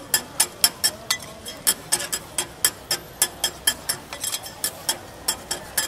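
Metal spatula clacking and scraping on a flat iron griddle while stir-frying vegetables: a quick, uneven run of sharp clicks, about four a second.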